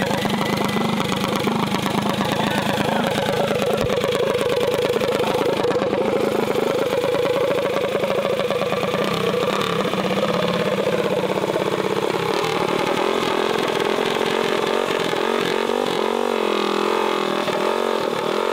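Small mini bike engine running and being revved, its pitch rising and falling, with quicker swings near the end.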